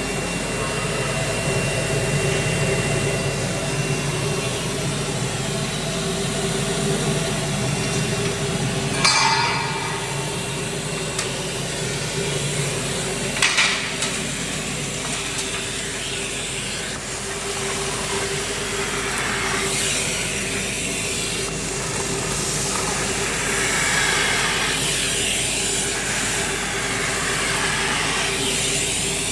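A 3 HP industrial vacuum cleaner running steadily, a rushing hiss of air with a constant hum. Two brief clattering rattles stand out, about nine and thirteen seconds in.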